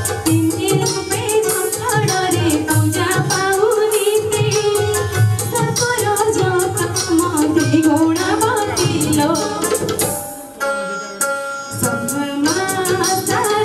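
A young woman singing a song into a microphone over instrumental music with a steady percussion beat. Her voice breaks off for about a second near the end while held instrument notes carry on, then comes back in.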